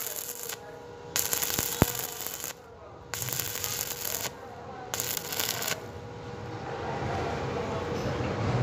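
Stick-welding arc crackling and hissing on galvanized steel, in four bursts of about a second each with quieter gaps between them, over a steady faint hum. The arcing stops about two-thirds of the way through, leaving only a quieter low noise.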